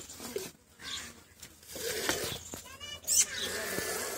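Milk squirting in repeated strokes into a steel pail as a cow is milked by hand. A short, high call that wavers in pitch breaks in about three seconds in.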